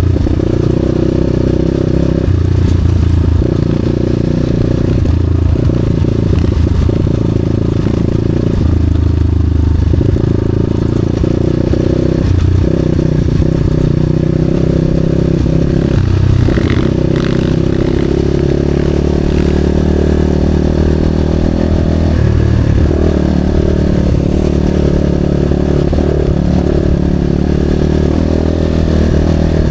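Motorcycle engine running while riding, loud and continuous, its pitch rising and falling with the throttle.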